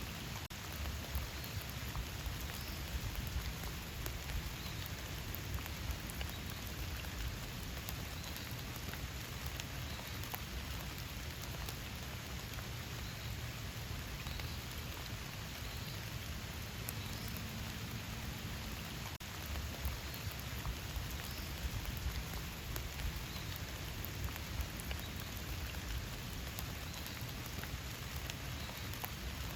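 Steady rain falling in a forest: a dense, even patter with individual drops ticking out above it.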